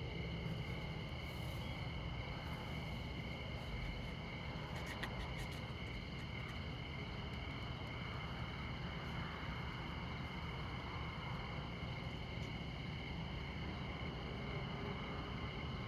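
Crickets trilling steadily, high and unbroken, over the low, steady rumble of distant interstate traffic.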